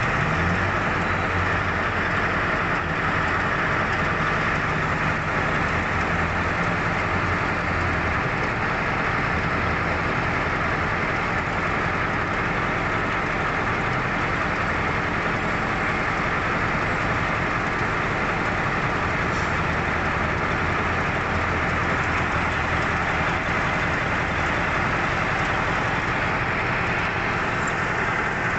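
Large diesel engine of heavy mining equipment running steadily at close range, a constant loud drone with a deep low note underneath.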